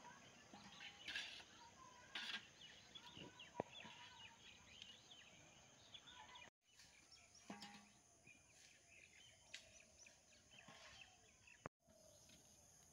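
Faint outdoor ambience with birds chirping and a few short, sharp knocks.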